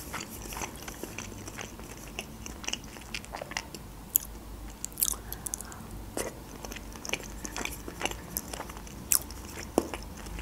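Wet chewing of pelmeni in cream sauce, with irregular sharp mouth clicks and smacks scattered throughout.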